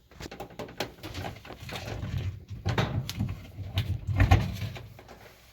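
Handling noise: a quick string of clicks and knocks with low thumps, loudest about four seconds in.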